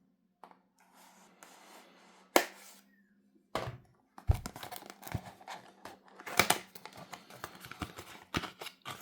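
Product packaging being opened and handled by hand. A few sharp clicks and a thump come first, then busy crinkling and rustling through the second half.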